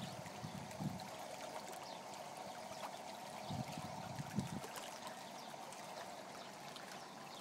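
Hot tub water churning and bubbling steadily with its jets running, with a few short low thumps about a second in and again around three and a half to four and a half seconds in.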